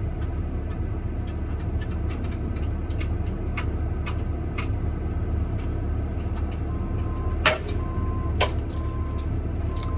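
Excavator's diesel engine running steadily, heard from inside the cab, with a few sharp clanks in the second half and a faint broken beeping near the end.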